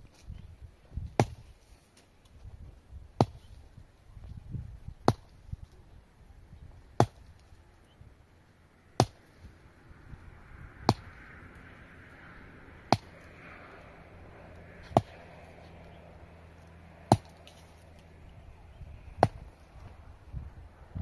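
Chopping strikes, one sharp blow about every two seconds, about ten in a row.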